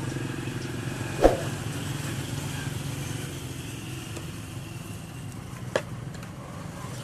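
Two sharp knocks, one about a second in and a lighter one near the end, from the plastic shell of a welding helmet being handled, over a steady low mechanical hum.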